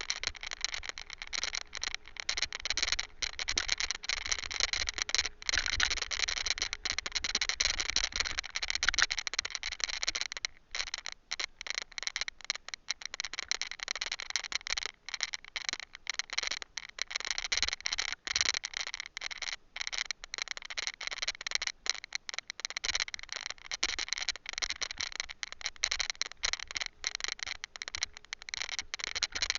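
Mounted camera rattling continuously in its mount as it is shaken over a rough trail, a dense stream of fast clicks over a low rumble of wind and jolts.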